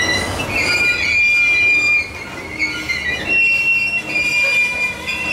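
Loaded covered hopper cars of a limestone train rolling past, their steel wheels squealing in several high, shifting tones over the steady rumble of the cars.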